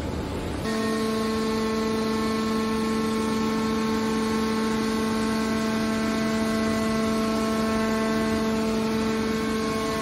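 Hydraulic power unit of a scrap metal baler running, its pump giving a steady whine with several fixed pitches while the lid cylinder closes the press box. The whine sets in about half a second in, after a rougher noise.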